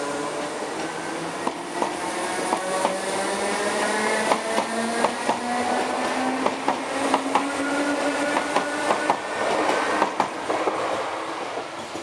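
Class 8300 DART electric multiple unit accelerating away from the station, close by. Its electric traction whines in several tones that rise steadily in pitch, and its wheels click over the rail joints, often in pairs. The sound dies away near the end as the train recedes.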